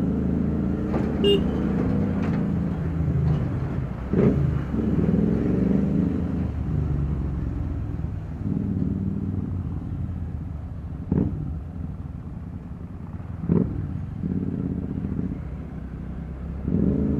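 TVS Ntorq 125 scooter riding with steady engine and road noise, with heavy traffic alongside, including a tanker truck at first. Several sharp knocks come through, the loudest about four seconds in.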